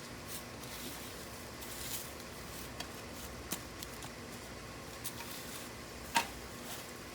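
Scattered light clicks and scuffs of hands and small hardware being handled while the cable tie-down anchor is set, with a brief scrape near two seconds and one sharper click about six seconds in.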